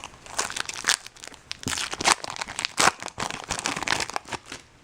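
Foil wrapper of a baseball card pack crinkling and tearing as it is opened, in a rapid run of irregular crackles that dies away near the end.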